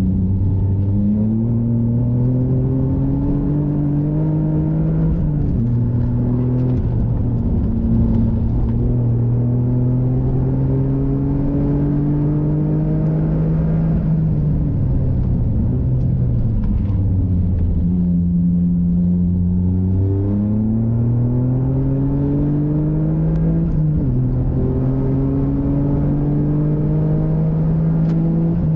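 Toyota GR Yaris's turbocharged 1.6-litre three-cylinder engine, running a MoTeC ECU tune, heard from inside the cabin under hard track driving. The revs climb in long pulls and drop sharply at each gear change. Past the middle they fall away for a few seconds, then climb again.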